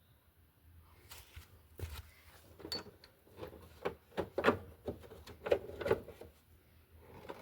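Irregular clicks and knocks of hands handling hard parts, starting about a second in, with the loudest knocks between four and six seconds.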